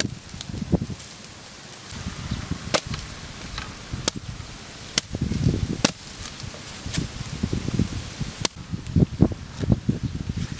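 Heavy broad-bladed knife chopping into the husks of young green coconuts: a run of sharp, uneven strikes, roughly one a second, each with a dull thud.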